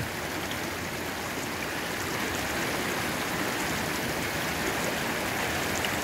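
Small mountain stream rushing steadily over rocks and stones.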